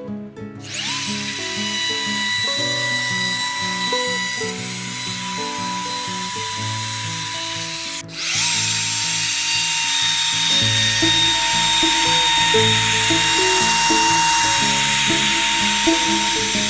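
Compact wood router's motor starting with a short rising whine, then running at a steady high whine as it cuts grooves into plywood panels. The whine cuts out abruptly about eight seconds in and starts up again at once. Acoustic guitar music plays underneath.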